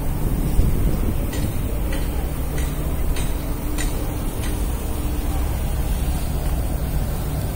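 A steady low rumble of wind buffeting the microphone over distant city traffic. From about a second in, a run of about six light footsteps at an easy walking pace.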